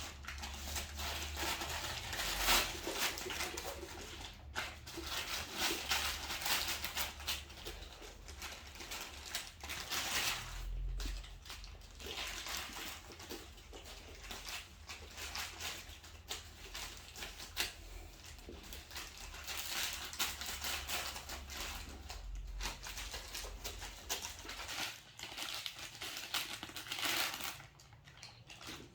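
A bag crinkling, rustling and tearing in irregular bursts as kittens pounce on it, bite it and rip it apart.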